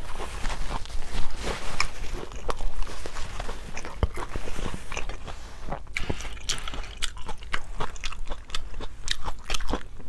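Close-miked chewing of a bite of fried bean-sprout spring roll (lumpiang togue), with irregular crunches and wet mouth clicks.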